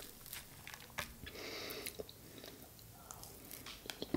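Quiet eating sounds: a spoon scooping and a mouthful of moist, soft red velvet sponge cake being chewed, with scattered light clicks of the metal spoon.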